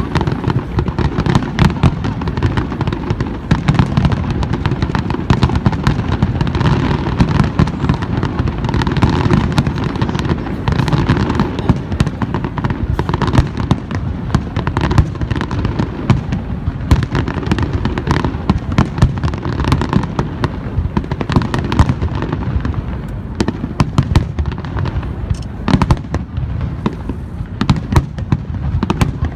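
Aerial fireworks bursting in a dense, rapid barrage: a continuous run of cracks and booms over a heavy low rumble, with no gaps.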